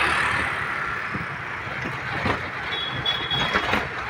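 Ride inside an open-sided auto-rickshaw in motion: steady road and wind noise, with several knocks and rattles from the cab after about two seconds and a brief high squeal about three seconds in.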